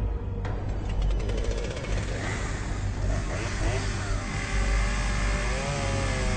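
Chainsaw engine running and revving. It fires in a rapid even pulse at first, then its pitch rises and falls.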